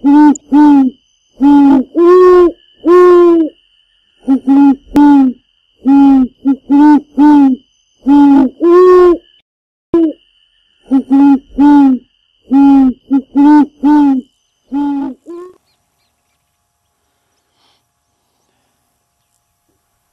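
A series of short, loud owl hoots, most in quick pairs, over a faint steady high tone; they stop about fifteen seconds in, leaving near silence.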